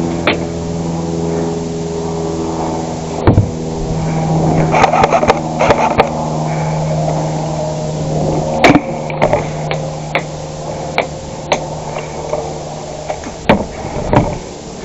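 Scattered sharp snaps of airsoft gunfire, single shots at irregular intervals with a few in quick succession, over a steady low mechanical hum.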